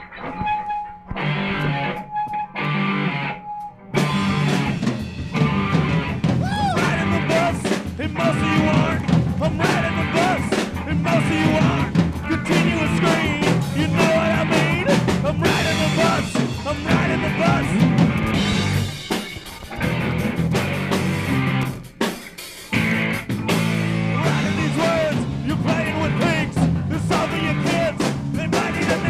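Live rock band: electric guitar, bass guitar and drum kit. A sparse guitar opening gives way to the full band about four seconds in, and the band drops out briefly twice a little past the middle.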